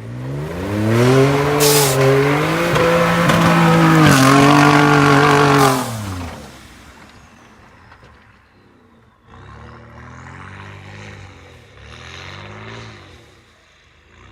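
Ford F-150's 3.5L EcoBoost twin-turbo V6, fitted with an SPD Performance turbo whistle kit, accelerating hard: a loud engine and exhaust note that rises and falls with a high turbo whistle over it, dropping away about six seconds in. Later it is heard again, fainter, rising and falling twice.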